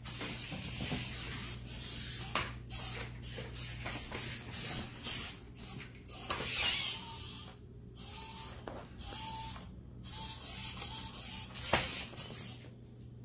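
Contixo Puppy Smart V2 robot dog's small motors and gears whirring in stop-start spells as it rolls on its wheels and works through a trick in response to a voice command, with a few sharp clicks and a few short high tones in the second half.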